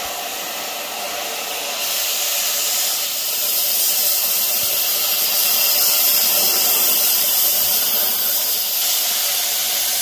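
Metal-cutting torch hissing steadily as it cuts apart a seized steering pin and bushing; the hiss grows louder about two seconds in.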